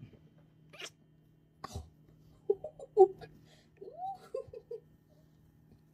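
A small tabby kitten giving a string of short, squeaky mews and chirps, some rising and falling in pitch, starting about two and a half seconds in. A soft knock comes just before them.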